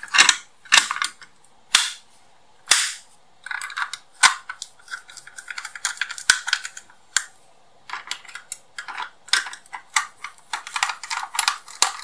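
Close-up clicks and knocks of a model car's body and plastic chassis being pressed together and handled, followed by runs of quick small clicks and creaks as a small screwdriver turns screws into the plastic underside.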